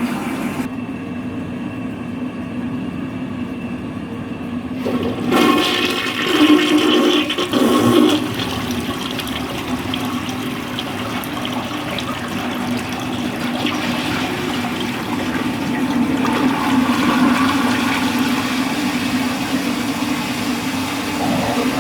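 1964 Universal Rundle wall-hung toilet, fed from a Briggs Conserver tank, flushing. Water runs steadily for about five seconds, then the flush surges loudly into the bowl in a few swells, followed by continuous rushing water as the bowl drains and refills.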